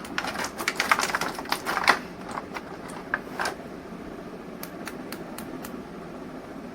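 Plastic toy packaging being handled and opened: a dense run of crinkles and sharp clicks for about two seconds, then scattered clicks, with a few sharp clicks near the end.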